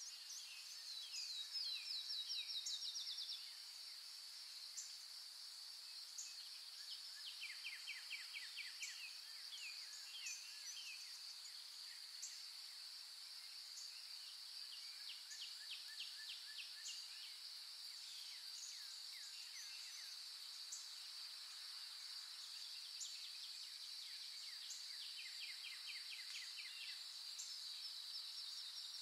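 Natural outdoor ambience: a steady high insect drone runs throughout. Over it, songbirds call in quick trilled series of short falling notes, loudest and closest at the start and then repeated on and off.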